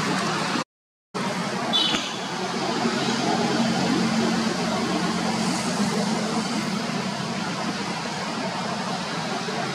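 Steady outdoor background noise with a low hum, cut by a short silent gap just under a second in; a brief high chirp sounds at about two seconds.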